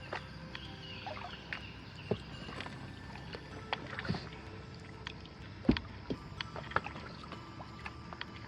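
Kayak paddling on calm water: paddle strokes with dripping and small splashes, and scattered sharp knocks and clicks, the loudest a little past halfway.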